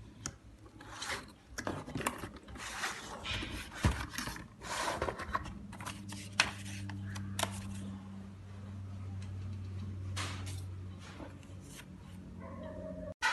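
Irregular rubbing and scraping handling noises for the first several seconds, then a steady low hum that runs until a sudden cut near the end.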